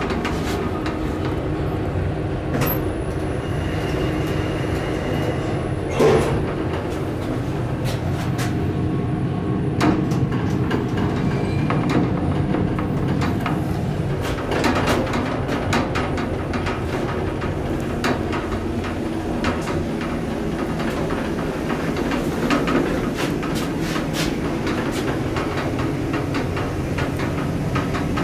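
1975 KONE inclined traction elevator cab running along its incline: a steady rumble with many clicks and rattles. A thump comes about six seconds in.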